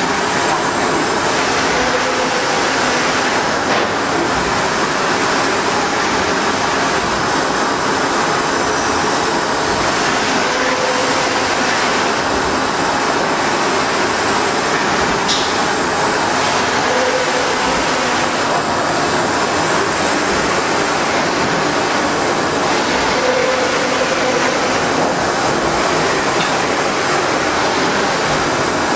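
Large-format UV flatbed printer running as it prints: a steady mechanical noise, with a short whine recurring every six or seven seconds.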